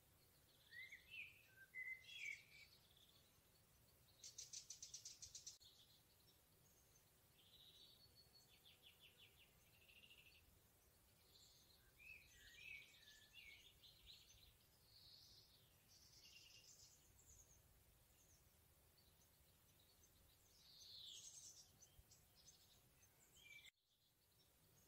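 Songbirds singing in a forest: short, scattered chirping phrases from several birds, with a fast trill about four seconds in and another about eight seconds in, over faint steady background hiss. The sound drops out briefly just before the end.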